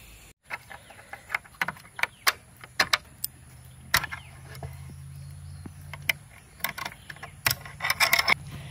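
Steel hasp latch on a wooden gate being unfastened by hand: a run of sharp metal clicks and clanks, thicker near the end.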